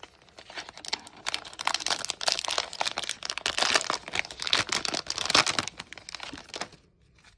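Plastic wrapper of a Topps basketball card fat pack crinkling as it is torn open: dense crackling that stops near the end.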